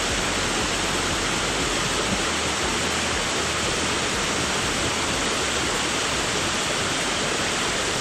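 Steady, even rush of a waterfall pouring into a plunge pool, with the stream running over rocks below it.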